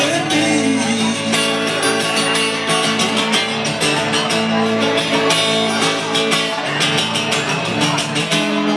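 Blues music with guitar playing.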